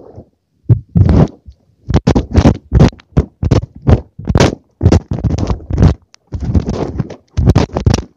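A buried phone's own microphone recording the earth being dug away above it: irregular scraping and thudding digging strokes, about two a second.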